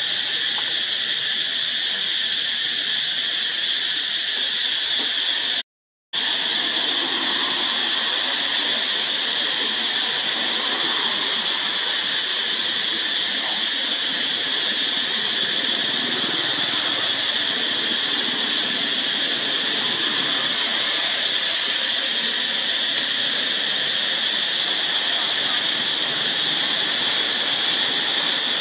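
Steady high-pitched insect chorus, a constant shrill drone, cutting out briefly about six seconds in.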